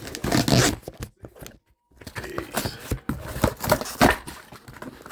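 Cardboard shipping box being torn open by hand: irregular ripping and crunching of the cardboard, broken by a pause of about a second early on.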